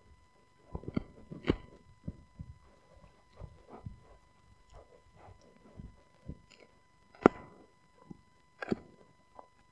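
A husky gnawing a rawhide-style chew bone: irregular crunches and clicks of teeth on the bone, the two loudest bites coming near the end.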